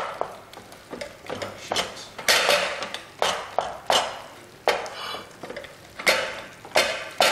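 A utensil knocking and scraping against a stainless-steel pot while soft cooked sweet potatoes are mashed in it. About a dozen irregular strokes, a few of them loud, with a short pause about five seconds in.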